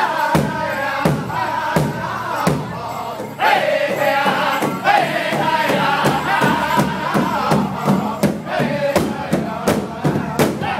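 Powwow drum group: a chorus of men singing a powwow song while beating a large powwow drum together. The drum keeps a steady beat that quickens in the second half.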